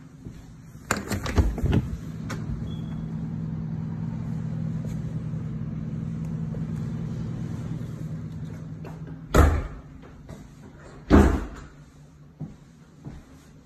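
Door latch clicks and knocks as a glass-paned door to a fire escape is opened, letting in a steady low outdoor hum of machinery or traffic. The hum cuts off as the door shuts with a loud thump about nine seconds in, and a second thump follows about two seconds later.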